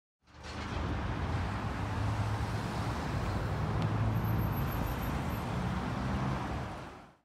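Road traffic noise, a steady hiss over a low, uneven rumble of car engines, fading in just after the start and out near the end.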